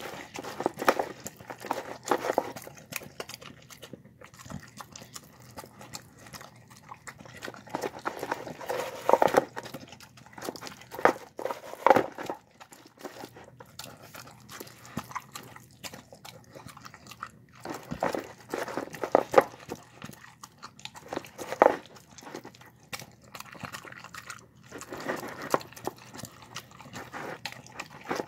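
A dog eating soft egg and boiled rice from a bowl: wet smacking and chewing in bursts of a few seconds, with quieter pauses between.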